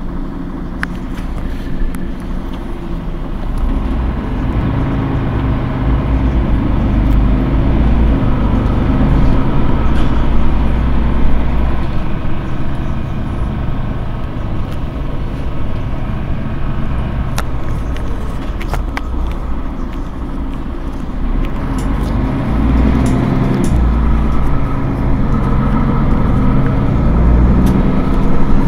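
Mercedes-Benz Citaro G C2 articulated diesel bus heard on board, its engine note building as the bus accelerates, easing off after about ten seconds, then building again in the second half. Occasional light rattles and clicks come through.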